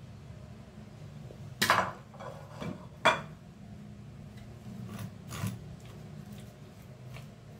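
Kitchen utensils knocking and scraping during fish preparation: two sharp knocks in the first few seconds, then a few lighter taps and scrapes, over a steady low hum.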